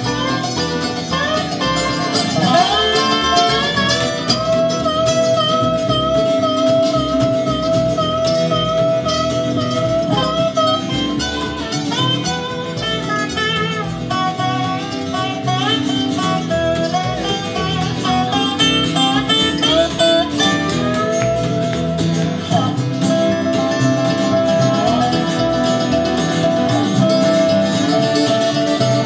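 Live acoustic bluegrass band playing an instrumental passage: a slide-played resonator guitar (dobro) draws out long gliding notes over strummed acoustic guitar, mandolin and upright bass.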